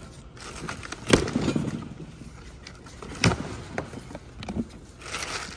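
Cardboard shipping box being opened and torn apart by hand: rustling and ripping, with two sharp snaps, one about a second in and one past three seconds. Plastic wrapping crinkles near the end.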